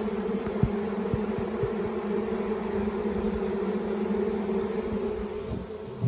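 Honeybee swarm buzzing: a steady drone of many bees in flight around a hive box as the swarm moves in, easing off somewhat near the end. A few soft low thumps sound under it.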